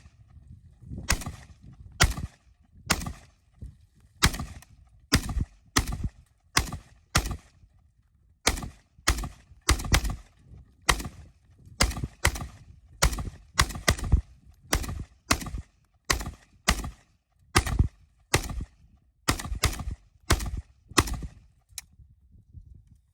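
A long, uneven string of about forty gunshots, roughly two a second, with a short pause about a third of the way through.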